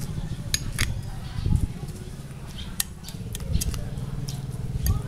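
Metal spoon clicking against a ceramic bowl as raw eggs are beaten with chopped vegetables, in quick irregular taps.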